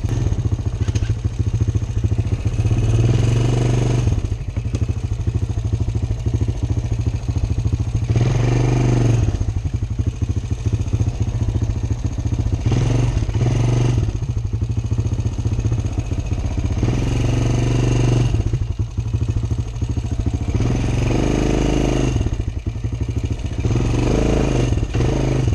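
Honda Recon ATV's single-cylinder four-stroke engine running under way, pulling harder and easing off again about every four to five seconds as the throttle is worked.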